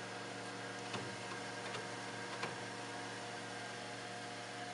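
Steady electrical hum with several constant tones, from the 3D printer and its electronics. Over it, a damp sponge scrubs the wet glass build plate, with a few faint soft strokes.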